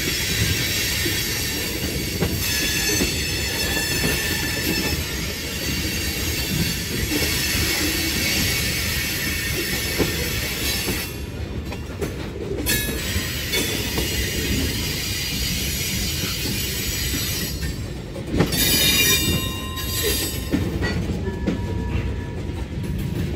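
Freight cars rolling along rail over a steady low rumble, their steel wheels squealing in high, shifting tones against the rails. The squeal comes and goes, with a louder stretch about three quarters of the way through.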